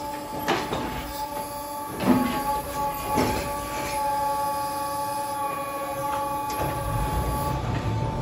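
Overhead hay crane running on its roof rails with a steady, multi-tone mechanical whine. Its grab thuds into lucerne bales and loose hay about half a second, two and three seconds in. A low rumble joins near the end as the boom moves.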